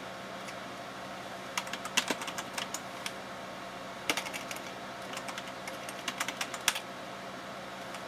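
Typing on a computer keyboard: two short runs of quick keystrokes, ending on one louder keystroke near the end.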